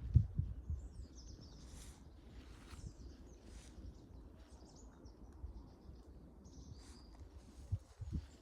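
Small birds chirping in short, scattered calls over a steady low rumble, with a few low thumps at the very start and again near the end.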